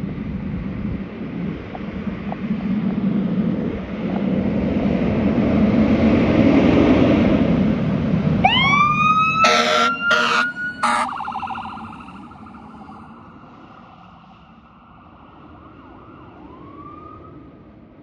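Fire engine pulling out on an emergency call: a rumble builds for the first eight seconds, then its electronic siren winds up in a rising wail and three short air horn blasts sound. The siren then fades as the truck drives off, with one more brief rising siren sweep near the end.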